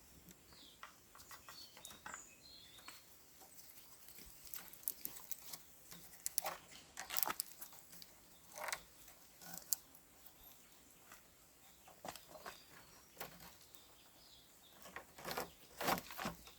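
Irregular light clicks and crackles, with a few short high chirps in the first three seconds.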